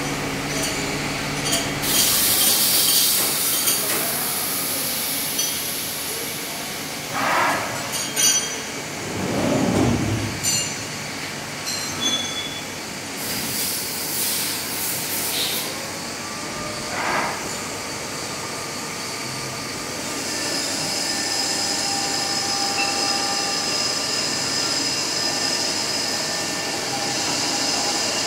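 Machine-shop noise from CNC machines turning camshafts: a steady machine hum with loud bursts of high hiss, a few metallic clinks and squeals, and in the last third a steady whine with several held tones from a running machine.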